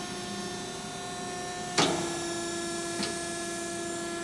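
Steady hum of a Euromac BX 750/30 CNC hydraulic punch's power unit idling. A single sharp clank comes a little under two seconds in, after which the hum's pitch shifts slightly.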